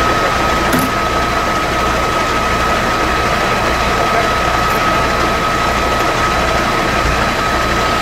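Fire engine running steadily to drive its pump, which feeds the hoses, with a steady high whine over a low rumble and hiss.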